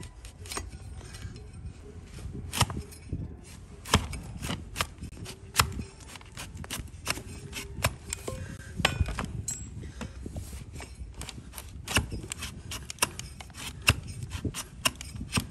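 Steel hoof shovel paring a donkey's hoof: irregular sharp cracks and clicks as the blade bites through the hard hoof horn, a handful of them much louder snaps.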